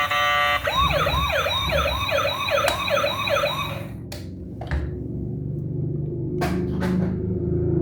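Electronic yelp siren wailing rapidly up and down, about two and a half sweeps a second, for roughly three seconds after a short steady tone. It then stops, leaving a low rumble with a few sharp clicks.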